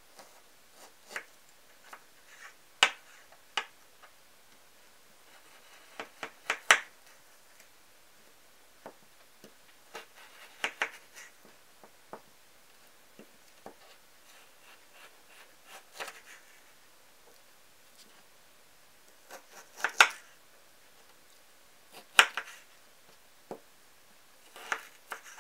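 Kitchen knife cutting raw chicken breast into bite-size pieces on a cutting board: irregular sharp taps and clicks as the blade meets the board and the pieces are pushed aside, a few of them much louder than the rest.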